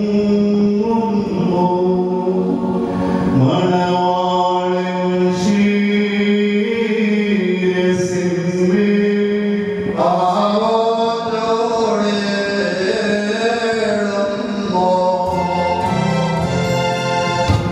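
Syriac Orthodox liturgical chant: a slow sung melody carried over a public-address system, with other voices joining and a steady held low note underneath.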